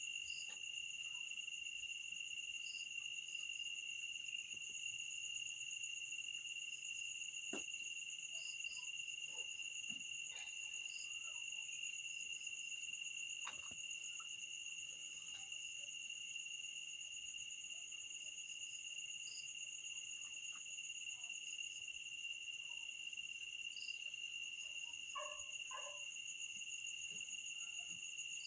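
Night insects, crickets, trilling without a break as a steady high-pitched drone. Faint scattered clicks and short chirps sound over it, with a brief lower sound near the end.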